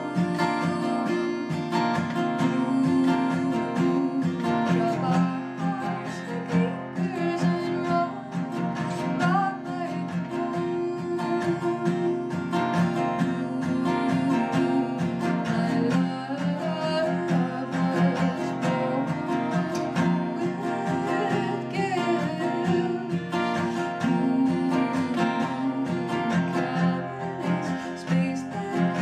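Takamine cutaway acoustic guitar strummed steadily, with a woman singing over it.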